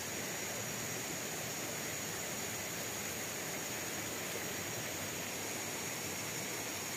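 Steady rushing of a shallow stream, with a steady high-pitched drone above it.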